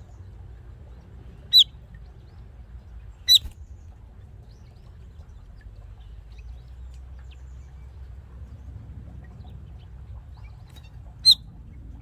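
A small bird giving three short, sharp, high calls: one about a second and a half in, one about three seconds in, and one near the end.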